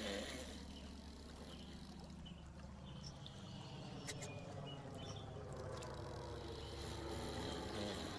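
Twin propeller engines of a low-flying airplane droning steadily, growing slowly louder as it approaches over the water.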